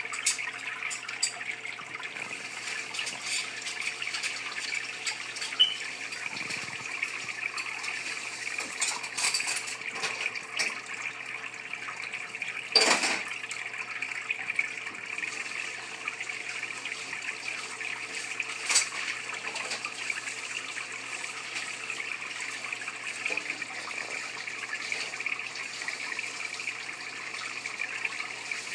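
Water in a home aquarium running and splashing steadily, a constant trickling hiss. A few sharp clicks cut through it, the loudest about thirteen seconds in and another near nineteen seconds.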